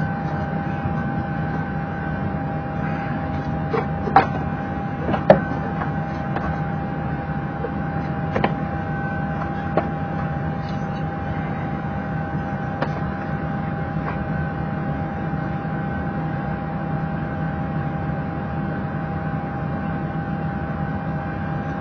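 Steady hum of a parked Boeing 737's cockpit after engine shutdown, with a few sharp switch clicks, the two loudest about four and five seconds in.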